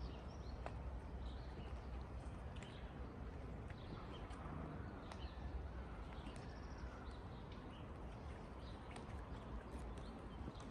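Outdoor ambience: small birds chirping on and off over a low steady rumble, with a few scattered sharp clicks.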